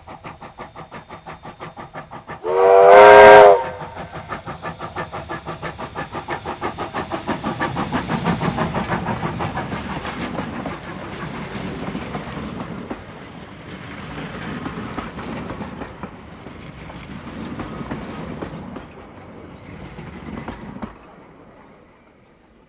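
NZR Ww class 4-6-4T steam tank locomotive Ww 480 working with regular exhaust beats. It gives one short whistle blast about two and a half seconds in, then carries on chuffing with the clatter of the train passing, fading away near the end.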